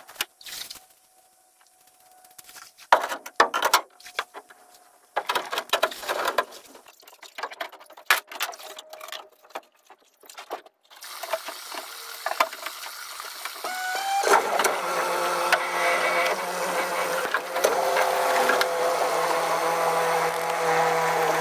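Scattered knocks and clatter on the boat, then an outboard motor running: a rising hum, and from about fourteen seconds in a loud, steady drone with a clear pitch as the boat runs along.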